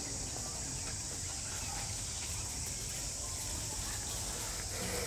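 Steady high-pitched drone of insects, with a faint low rumble beneath.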